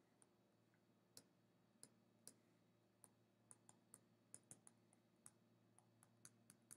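Faint, irregular clicks of a stylus tapping a tablet's touchscreen during handwriting, against near silence.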